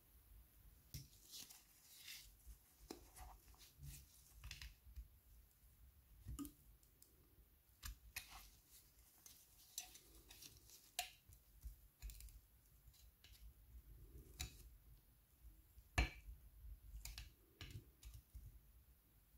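Small metal hand tools, a pick and then a screwdriver, scraping and clicking against the thin metal lever plate inside a signal lamp's metal front cover: faint, irregular scratches and ticks, with one sharper click about sixteen seconds in.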